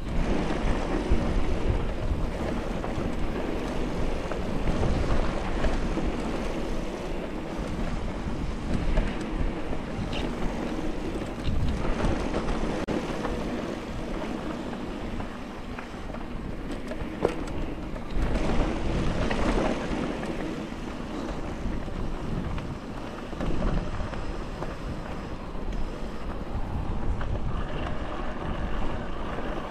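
Wind buffeting the microphone: a continuous rushing noise, heaviest at the low end, that swells and eases.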